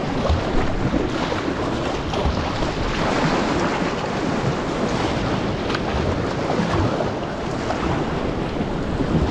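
Foaming sea water rushing and splashing around the bow of a sea kayak, with wind buffeting the microphone; a steady noise throughout.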